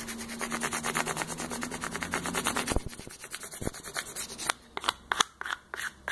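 A handheld spatula rubbed quickly back and forth over the paper transfer tape on a stand mixer's body, burnishing a vinyl decal down: rapid scraping strokes about six a second. In the last second and a half these give way to slower, separate strokes.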